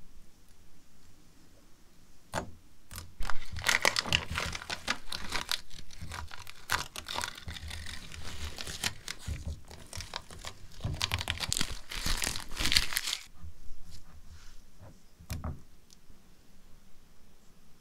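Masking tape and masking paper crinkling and tearing as they are handled and pressed onto a small diecast model car body. There is a dense run of crackling through the middle and a few separate sharp clicks near the start and near the end.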